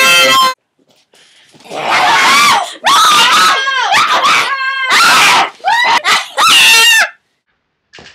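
Several girls screaming together in loud, shrill bursts of about a second each, with short pauses between.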